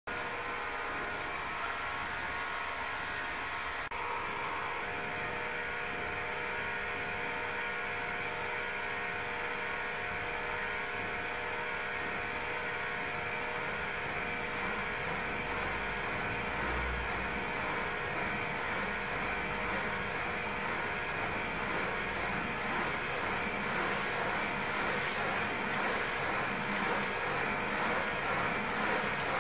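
Steady mechanical hum with several whining tones from machinery running a wave-tank test of a wave energy converter. In the second half a regular pulsing builds and grows louder.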